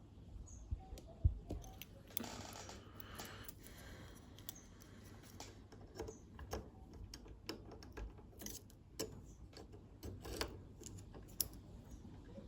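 Lishi LW4 pick-and-decoder tool clicking and scraping in a security door lock cylinder, with irregular small metallic clicks and a longer scrape a couple of seconds in, as the tool is worked in the keyway.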